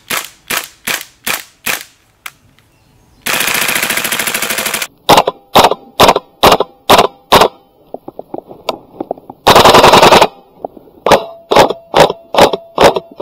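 Airsoft guns firing in turn: a Tokyo Marui MP7 gas blowback gun fires about five single shots, then a rapid full-auto burst about a second and a half long. A gas blowback SCAR-H then fires a string of single shots and a short full-auto burst, and an electric SCAR-H fires more single shots near the end, with a faint steady whine under them.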